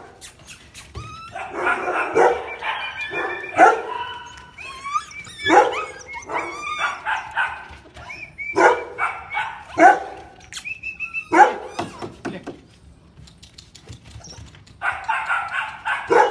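Siberian husky puppy barking and whining in repeated short bursts, with some high drawn-out whines among them; there is a quieter stretch near the end before a last burst.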